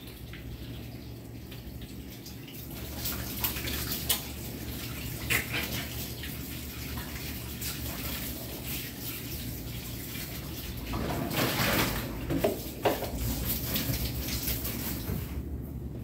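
Hands being washed under a running tap at a sink: water running and splashing, with scattered small knocks and a louder rinse about eleven seconds in. The water stops shortly before the end.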